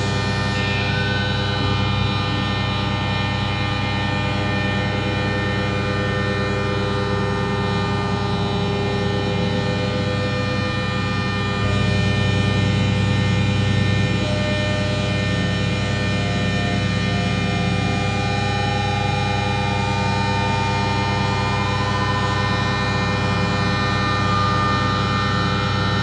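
Electronic drone music: a dense cluster of sustained tones, with a slow gliding tone rising through the second half.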